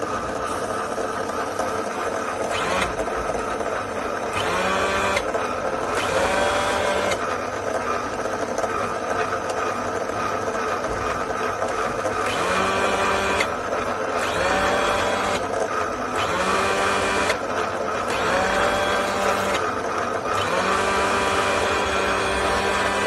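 Automatic roti-making machine's motors whirring, with a steady hum under a series of short whines, each rising in pitch and then holding for about a second.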